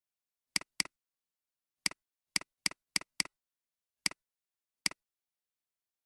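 Computer mouse clicking nine times at an uneven pace, each a short, sharp press-and-release click, with dead silence between.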